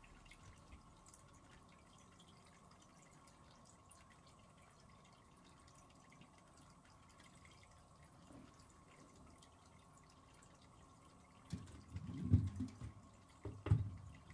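Quiet room tone with a faint steady high hum, then a short cluster of dull low thumps and bumps near the end, the loudest two about a second and a half apart.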